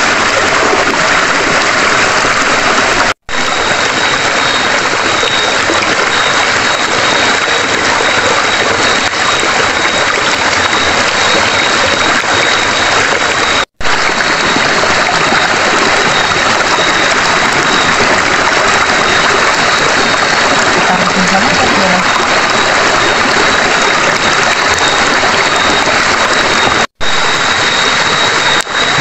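Steady loud rush of a flowing river over rocks, with a thin, steady high note over it. The sound breaks off for an instant three times.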